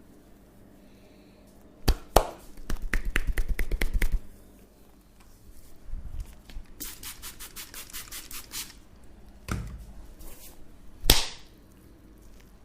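Massage percussion: hands striking the body in quick rhythmic taps, about seven a second, in two runs, with a few sharp slaps between them.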